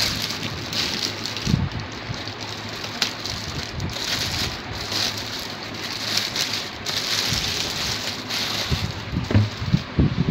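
Clear plastic wrapping crinkling and rustling as a sewing machine is pulled out of its bag, with a couple of dull bumps near the end.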